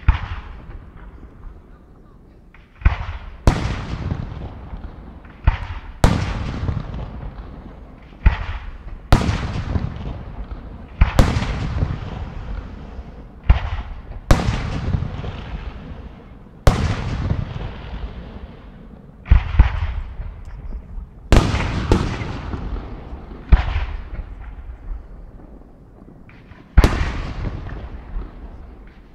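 Aerial firework shells, mainly 75 mm, bursting one after another: about sixteen sharp bangs every two to three seconds, some in close pairs, each trailing off in a long echoing rumble.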